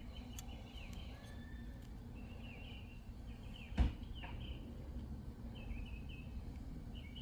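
Birds chirping repeatedly in the background over a steady low rumble, with one sharp click a little under four seconds in.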